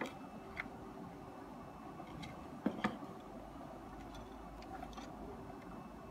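Faint handling noise from fitting thin plastic tubing into a biochemistry analyzer's pump compartment: scattered small clicks and taps, with two sharper clicks close together about halfway through.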